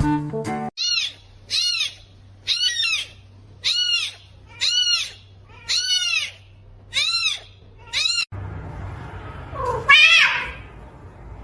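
A cat meowing seven times in a row, about once a second, each meow high-pitched and rising then falling. After a cut, one louder meow-like call near the end.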